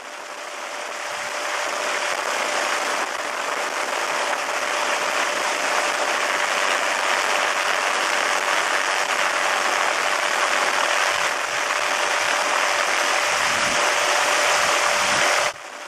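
Helicopter in flight heard from on board: a steady rush of wind and engine noise with a steady whine running through it. It fades in over the first couple of seconds and cuts off abruptly just before the end.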